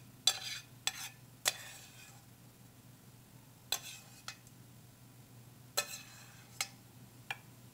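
A metal spoon scraping and clinking against the inside of a stainless steel pan as tomato-sauced chicken is spooned out, in short irregular strokes with pauses between.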